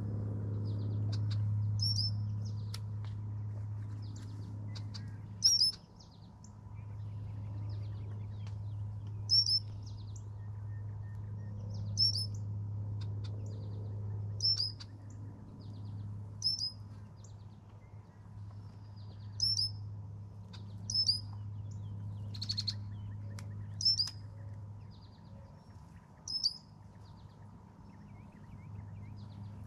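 A bird repeating a short, high chirp about every two to three seconds, a dozen or so times, over a steady low hum.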